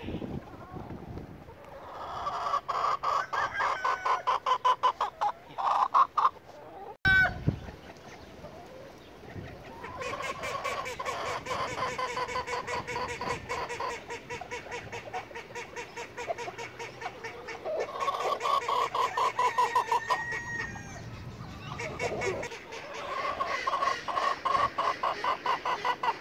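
A flock of domestic chickens clucking, in fast runs of clucks that swell and fade in waves, with a sudden break about seven seconds in.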